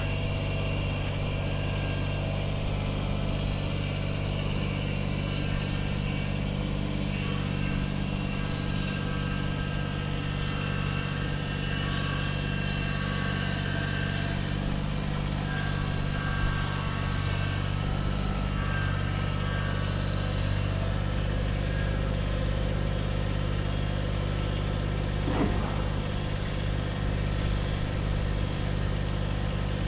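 Kubota BX25D compact tractor's three-cylinder diesel engine running steadily at low speed while the tractor tows a travel trailer on its three-point hitch.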